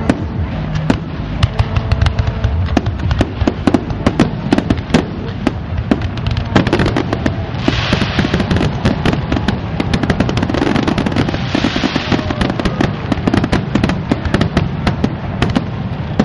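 Aerial fireworks display: a rapid, irregular barrage of bangs and booms. Stretches of hissing crackle come about eight and about eleven seconds in.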